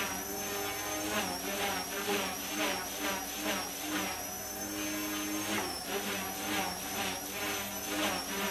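Mini CP micro collective-pitch RC helicopter with brushless main and tail motors hovering: a high motor whine that wavers slightly in pitch, over a rotor buzz that swells and eases about once or twice a second as the pilot holds it in the air.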